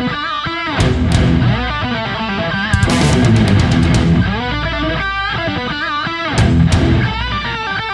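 Background rock music led by electric guitar, with bass underneath.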